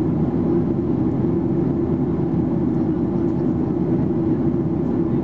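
Steady cabin drone inside a Boeing 737-800 in flight: the CFM56-7B engines and the airflow over the fuselage make a deep, even rumble that does not change.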